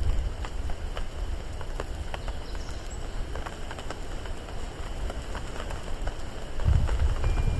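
Rainwater dripping: scattered drops tapping at irregular intervals over a soft steady hiss. A low rumble swells up near the end.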